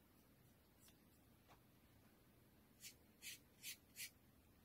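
Faint room tone, then four quick, scratchy strokes of a half-inch flat brush dragging acrylic paint across an MDF painting board, within about a second and a half near the end.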